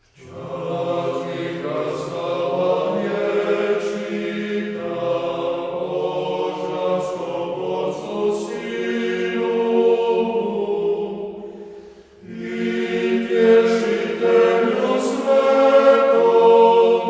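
Male vocal nonet of Franciscan friars singing liturgical chant a cappella, a Vespers psalm sung in Croatian. The singing starts out of silence, and a phrase ends about twelve seconds in, with a short breath before the next phrase begins.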